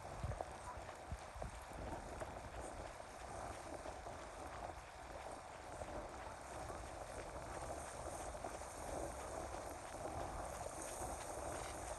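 Wind rumbling on the microphone over a steady wash of small lake waves, with a few low thumps in the first second and a half.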